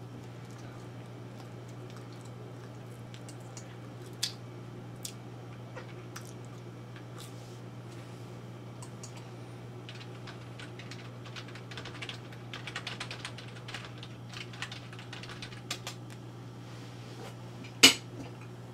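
Scattered small clicks and taps, coming thicker in the second half, over a steady low hum, with one sharp click near the end.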